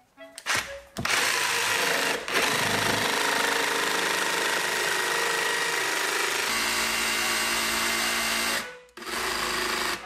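Cordless jigsaw cutting through MDF board. After a couple of short blips the motor runs steadily through the cut, its tone dropping about two-thirds of the way through. It stops briefly near the end, then starts again for about a second.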